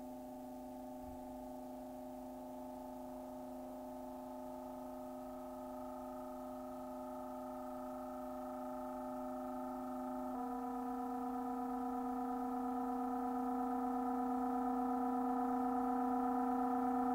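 Pre-recorded electronic sounds, made from transformed violin recordings, holding a chord of steady pure tones that slowly grows louder; about ten seconds in the chord shifts to new pitches.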